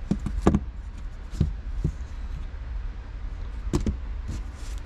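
A plastic floor vent grille being handled and set down on carpet: a few light plastic clicks and knocks, the loudest pair near the end, over a steady low rumble.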